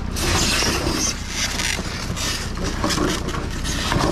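Rummaging through junk: irregular rustling, scraping and clattering of items being moved, over a low steady hum.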